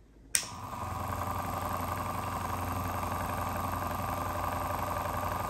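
Electric Eel Wheel Nano 2 electric spinning wheel switched on with a sharp click, then its small motor running steadily, turning the flyer and bobbin with an even hum.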